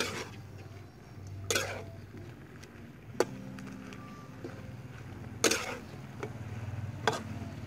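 Kitchen utensils knocking sharply against cookware or a board, about five knocks at uneven intervals, over a low steady hum.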